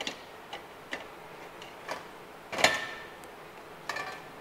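Scattered light clicks and clinks of medical instruments handled in a stainless steel tray, with one louder ringing metal clink about two and a half seconds in and a few more near the end.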